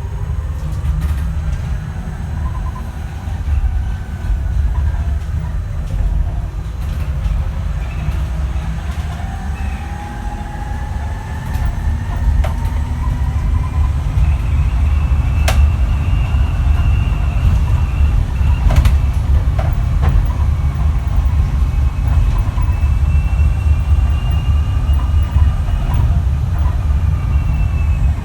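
The ZF AxTrax AVE electric drive axle of a Switch Metrodecker EV electric double-decker bus whines as the bus drives, its pitch rising as it speeds up, holding, and falling as it slows near the end, over a heavy low rumble and a few sharp knocks.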